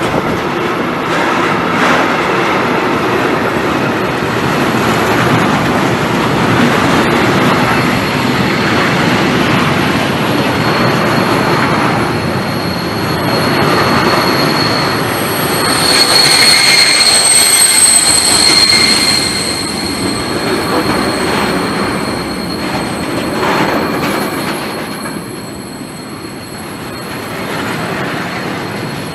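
A train rolling past on the track with continuous wheel-on-rail noise, with a thin, high, steady wheel squeal setting in about a third of the way through and loudest just past the middle; the noise eases near the end.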